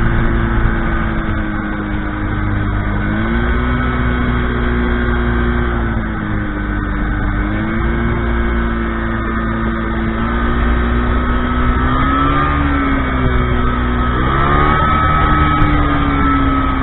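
Ultralight aircraft engine running, its pitch stepping up and down several times with throttle changes and sliding down near the end.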